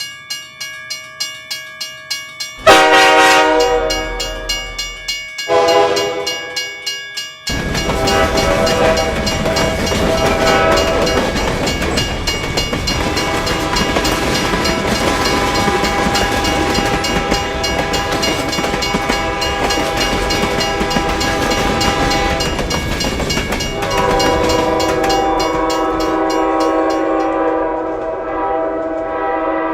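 Railroad crossing bell ringing at an even beat, then a diesel locomotive horn sounds two blasts. A train then passes with a dense rushing rumble and the horn sounding over it, and near the end the horn holds one long chord.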